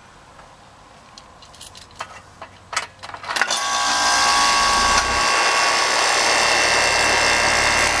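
A few sharp clicks, then about three and a half seconds in a Rheem 4-ton heat pump's outdoor unit starts up and runs with a loud, steady hum and whine. The compressor is starting with no hard start kit fitted, drawing a 121.3 A inrush on its common wire.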